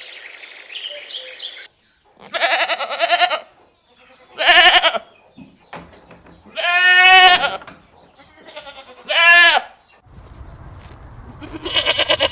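Birds chirping briefly at the start, then a series of five loud, wavering bleats from farm animals, each lasting under a second to about a second and a half. The last bleat comes over a low hum, after a change of scene about ten seconds in.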